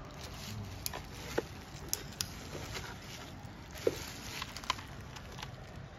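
Handling noise from a plastic portable air compressor being turned over in the hands: a handful of scattered clicks and taps, the sharpest about four seconds in, over a steady low background hum.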